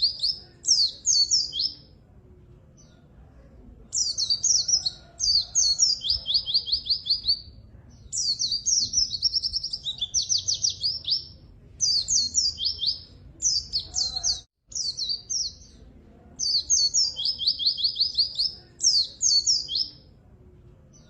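White-eye (pleci) singing gacor in bursts of a few seconds: high chattering phrases with fast trills of repeated descending notes, separated by short pauses. The sound cuts out for an instant about fourteen seconds in.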